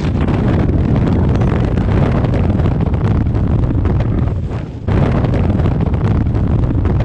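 Loud wind rushing over the camera's microphone during a tandem parachute descent, a steady heavy buffeting that eases briefly just before the five-second mark and then comes back at full strength.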